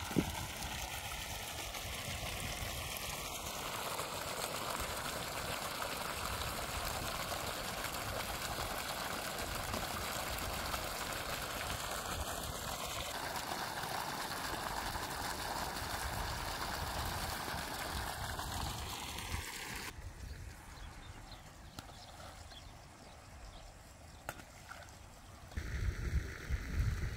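Water pouring from irrigation pipes into a plastic-lined pond: a steady rushing splash. It drops away about twenty seconds in, and low rumbling comes in near the end.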